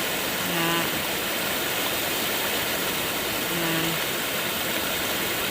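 Floodwater rushing over an overtopped spillway: a steady, unbroken roar of water. Two brief flat-pitched tones rise above it, about half a second in and again about three and a half seconds in.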